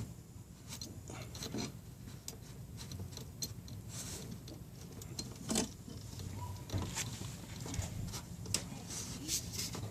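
Scattered light clicks and brief rubbing from small parts and meter test leads being handled.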